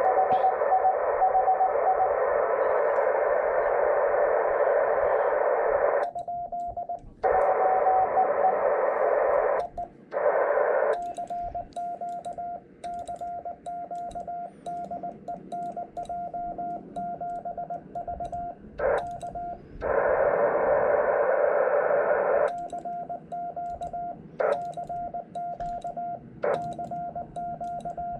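Shortwave ham transceiver on the 18 MHz band in CW mode, with Morse code as a keyed tone of about 700 Hz. Stretches of receiver hiss carrying incoming Morse alternate with quieter stretches where the hiss cuts out and the sent Morse tone plays clearly, with light clicks of the paddle keying it. The hiss drops out about six seconds in, comes back briefly twice, and returns again for a couple of seconds past the two-thirds mark.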